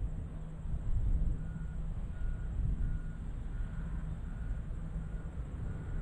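Vehicle backup alarm beeping: a short single tone about every 0.7 s, starting about a second and a half in, over a steady low rumble.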